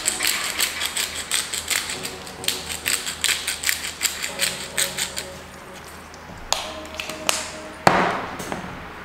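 Hand-twisted pepper grinder cracking peppercorns: a rapid run of ratcheting clicks that stops about five seconds in. A single sharp knock follows near the end.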